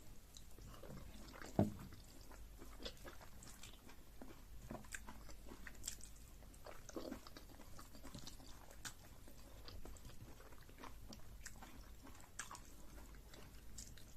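Close-up eating sounds: a person chewing and smacking through mouthfuls of food, a run of small irregular wet clicks, with one louder knock about a second and a half in.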